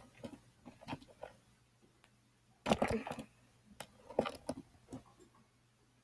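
Irregular taps, knocks and scrapes right at the microphone as the webcam is handled, with a loud flurry of them about three seconds in.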